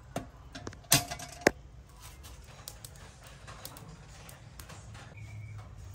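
Metal mess-tin pot and its folding handle clanking on a wire grill as the pot is set down. A few light clicks, then two sharp metallic clanks about half a second apart around a second in, the first one ringing briefly.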